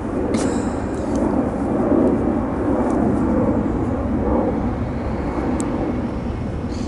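A steady low rumble of outdoor background noise, loud and with no clear rhythm or breaks.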